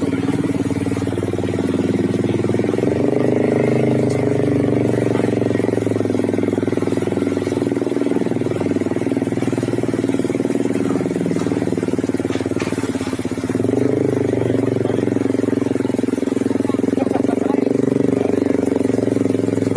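Vehicle engine running steadily at low speed, its note rising briefly about 3 seconds in and again about 14 seconds in.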